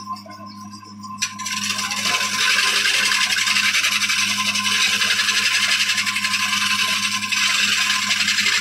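A woodworking machine cutting wood: a steady scraping hiss starts abruptly about a second in and holds, over a constant low motor hum.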